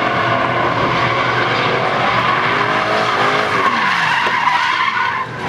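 Drift car sliding with its engine revving up and down and its tyres screeching. The sound dips briefly near the end.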